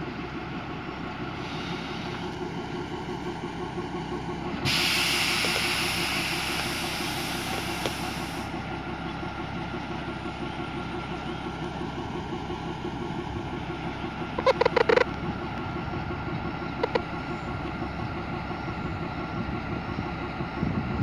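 Narrow-gauge ZDM-5 diesel locomotive and its coaches running past, a steady engine and wheel rumble on the track. About four and a half seconds in, a loud hiss of air starts and fades away over about four seconds. A few short sharp pitched chirps come later.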